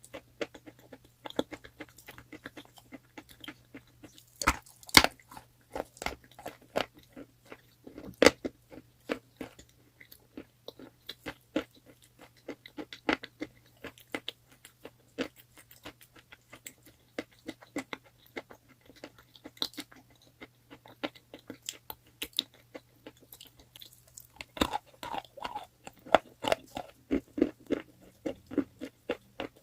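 A person biting and chewing crunchy chalk: a steady run of sharp crunches and clicks, loudest about five seconds in and again about eight seconds in, over a faint low hum.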